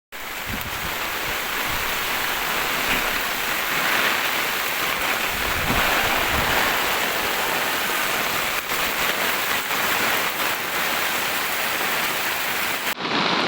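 Steady, dense hiss of heavy cloudburst rain and running floodwater. The high part of the hiss drops away suddenly near the end.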